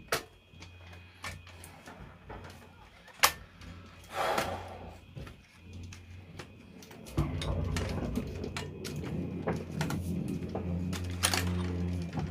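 Small clicks and knocks of parts being handled and fitted into a Sansui TU-77X tuner during reassembly, with a sharp click about three seconds in and a brief scrape around four seconds. From about seven seconds a low steady hum sets in.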